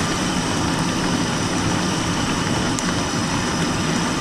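Steady roar of a gas cooking burner under a stir-fry pan, with vegetables sizzling in it.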